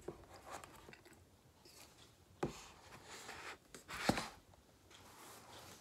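Soft handling noises of an iPad Pro and its cardboard box: light rubbing and scraping with a few sharp taps, the loudest a knock about four seconds in.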